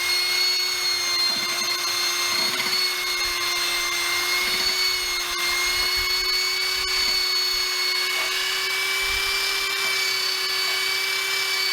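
Handheld rotary power tool running at a steady high speed with an even whine, its smaller removal attachment stripping seam sealer off the engine bay sheet metal.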